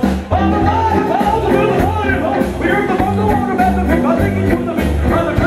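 Live rock band playing loudly: cello over bass guitar and a drum beat.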